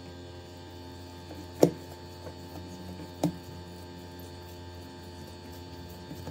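Two sharp knocks about a second and a half apart as oiled balls of bread dough are set down on a metal baking tray, over a steady low electrical hum.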